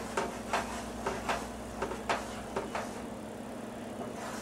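A utensil stirring a thick boiling sugar-and-cocoa syrup in a frying pan, scraping and knocking against the pan about twice a second, easing off after about three seconds.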